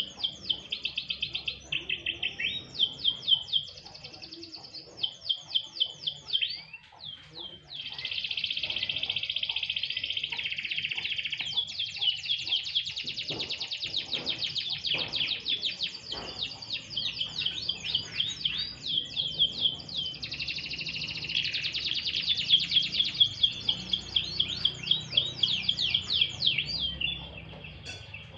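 Domestic canary singing a long, near-continuous song of rapid repeated chirps and fast rolling trills, softer for a few seconds partway through.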